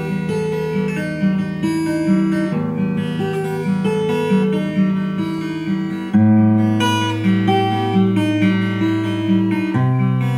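Steel-string acoustic guitar fingerpicked: a repeating pattern of plucked notes over a held bass note that changes about every three and a half seconds, the playing getting louder about six seconds in.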